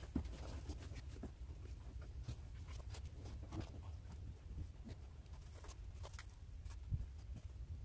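Wet nylon gill net being pulled and handled over plastic crates: scattered light ticks, taps and rustles, over a steady low noise.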